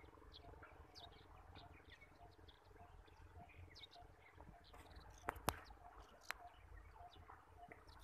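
Faint birds chirping in the canal-side trees, with a low rumble under them. Three sharp clicks come about five to six seconds in.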